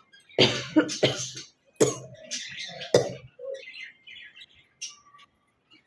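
A woman coughing and hawking to bring up phlegm: four harsh coughs in the first three seconds, then softer, higher-pitched throaty rasps.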